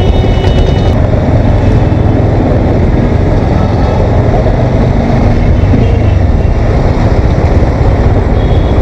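Bajaj Dominar motorcycle being ridden: steady low rumble of engine and wind rushing over the microphone.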